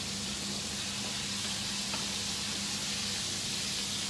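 Breaded chicken pieces frying in a pan of hot oil: a steady sizzle.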